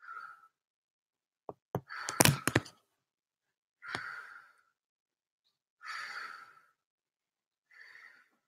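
A man breathing out slowly and audibly while lying down to relax, a long breath about every two seconds. About two seconds in, a quick cluster of sharp knocks and thumps, the loudest sound here.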